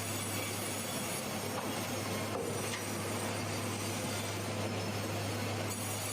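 Sawmill machinery running steadily: a continuous mechanical noise over a constant low hum.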